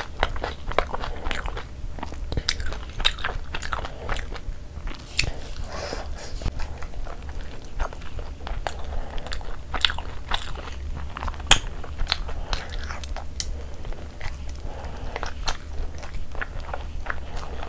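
A person eating with her hands: chewing and biting food, with crunches and many sharp, irregular mouth clicks.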